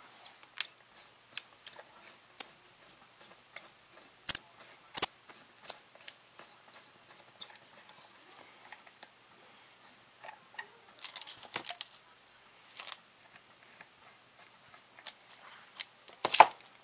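Small dry clicks of hand tools and parts at a hobby bench, including a pin vise hand-drilling into a wooden display base. A quick even ticking, nearly three clicks a second, runs through the first half. Then come scattered clicks and taps, and a louder short clatter near the end.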